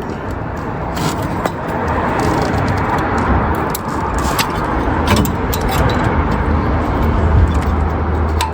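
Steady rushing noise with a low rumble that swells in the second half, with scattered light clicks of hand tools working a spark plug out of the engine.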